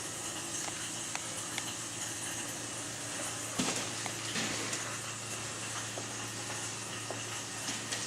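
Steady hiss of rushing water, with a few small clicks and a brief louder burst of noise about three and a half seconds in.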